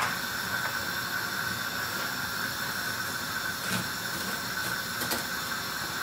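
Steady hiss with a faint high steady tone. Two soft knocks, one a little past halfway and one near the end, come from a knife cutting carrot over a wooden cutting board.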